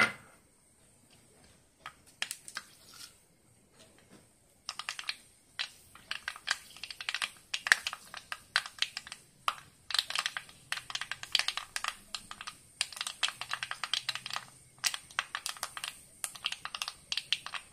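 Mustard seeds popping and spluttering in hot coconut oil, fenugreek frying with them: a few scattered pops at first, building about five seconds in to a dense, irregular crackle. The crackle is the sign that the oil is hot enough and the tempering is ready for the next ingredient.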